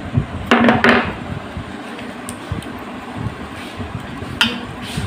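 Hands working wet palm fruit fibres and seeds in a steel bowl: low rustling and rubbing, with short ringing clinks against the bowl about half a second in and again near the end.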